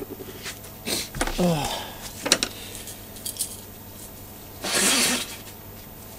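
Light clinks and taps of small metal parts being handled. A person gives a short falling hum about a second and a half in, and a half-second breathy nasal rush near five seconds in, from someone troubled by allergies.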